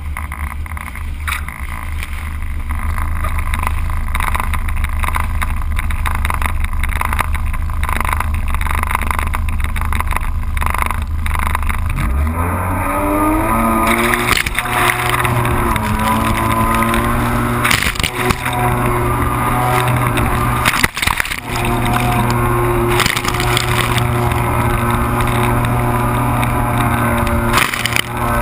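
Yamaha GP1300R WaveRunner's three-cylinder two-stroke engine running low and steady. About twelve seconds in, the throttle opens and the engine rises in pitch to a steady high note at speed, dropping off briefly a few times. Water spray and wind rush past the whole time.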